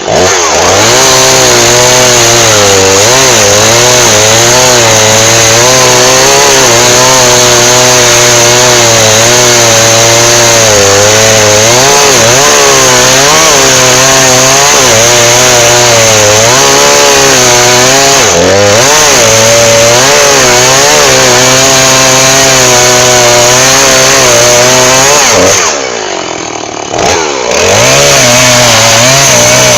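Chainsaw running loud at high revs, its pitch wavering as the load on the chain changes while sawing wood. Near the end the revs drop briefly, then climb back up.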